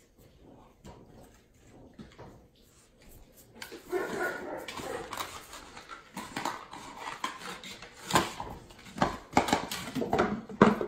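A plastic basket clattering, knocking and scraping on a tile floor as a puppy grabs it in its mouth and carries it, starting about four seconds in, with the puppy's voice mixed in.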